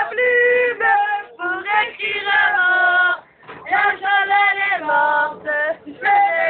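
A woman singing loudly, holding long notes in short phrases with brief breaks between them.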